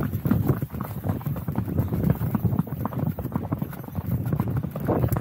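Hoofbeats of a ridden horse on a dirt trail, a steady run of low thuds.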